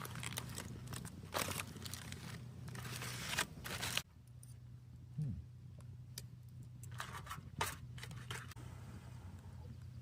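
Aluminium foil packet being handled and opened, crinkling and rustling in quick crackly bursts; it stops abruptly about four seconds in, leaving only a few faint clicks.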